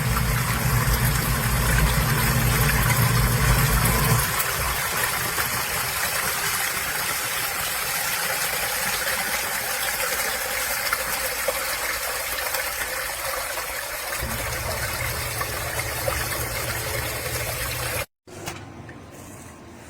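Water gushing from a pump discharge over the steady hum of a running pump motor. The hum is strongest for the first four seconds and again from about fourteen seconds. It all cuts off abruptly near the end.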